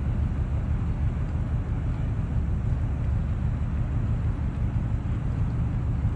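Steady low rumble of a ship under way, mixed with wind on the microphone.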